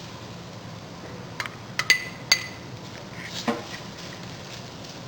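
A metal utensil clinking against cookware several times as onions go into the pot, a quick cluster of clinks a little under two seconds in, two of them ringing briefly, then one more knock.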